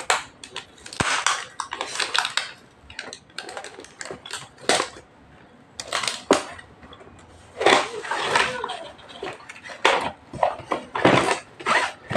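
A cardboard product box being handled, turned over and opened by hand: irregular rustling, scraping and crackling of cardboard and plastic wrapping, with sharp clicks and taps.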